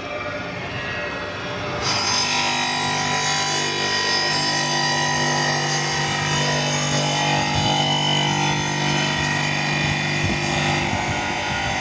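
Machinery running at a steady speed, a drone with a whine of several held tones that sets in abruptly about two seconds in.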